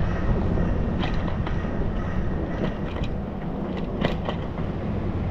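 Wind rumbling steadily on the microphone outdoors, with a few faint clicks.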